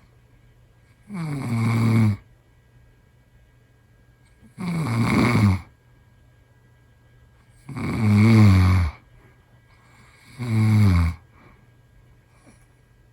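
A man snoring: four loud snores about three seconds apart, each about a second long, a pitched buzz with a hiss over it that sounds like air leaking.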